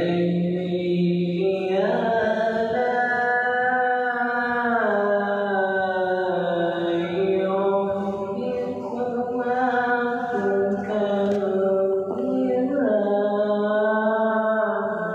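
Male reciter chanting Quran recitation (tilawat) in a long melodic phrase: one voice holding notes with slow glides and steps in pitch, with only brief breaks.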